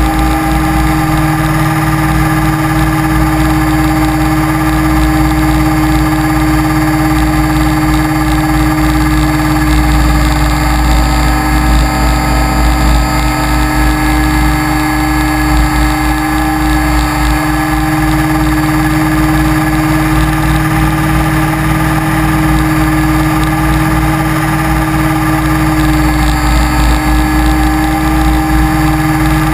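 Align T-Rex 550E electric RC helicopter in flight, heard from a camera mounted on the aircraft: its motor, gears and rotor make a loud, steady drone of several held tones, the pitch sagging slightly a couple of times.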